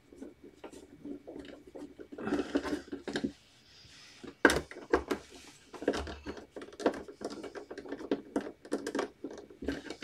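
Hands handling the back casing and stand of an Acer all-in-one computer: scattered clicks, taps and rubbing, with a rustle about two seconds in and a sharper knock a little later.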